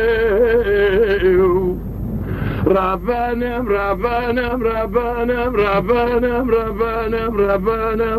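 A man singing a long, wavering, ornamented melody. About two seconds in he pauses briefly for breath, then goes on in shorter, pulsing phrases.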